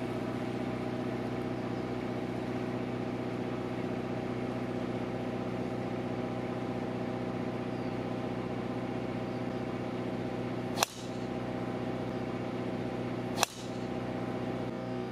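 Sharp cracks of a golf driver striking the ball off the tee, twice, about two and a half seconds apart, over a steady mechanical hum.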